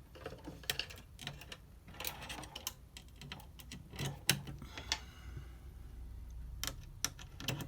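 Irregular clicks and taps of patch cables being plugged into jacks on a Eurorack modular synthesizer while a clock signal is patched into the Echophon delay, over a low hum, with a faint synth tone in the middle.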